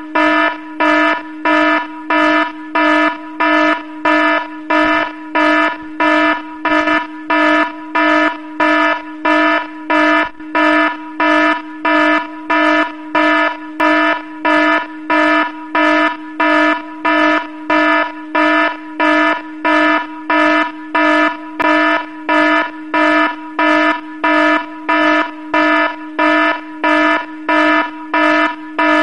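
An electronic alarm buzzing in even, evenly spaced pulses, about three every two seconds, each at the same pitch.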